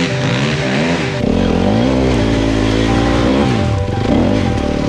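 Dirt bike engine revving up and down several times, its pitch rising and falling, with background music laid over it.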